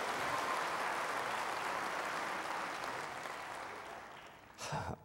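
Church congregation applauding, the clapping dying away steadily over about four seconds, with a short louder sound just before the end.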